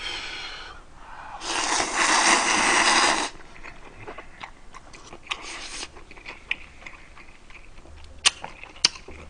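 A person slurps Chapagetti black-bean noodles, one long loud slurp about a second and a half in, then chews with scattered small clicks.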